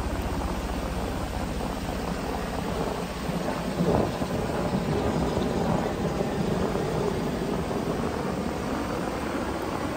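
Steady rushing noise of surf and wind on the beach, with a short, louder low rumble about four seconds in.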